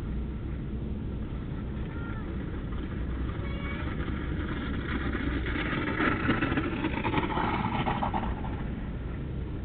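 A sled sliding fast over packed, icy snow, a grainy scraping that swells to its loudest about six seconds in and fades away by eight.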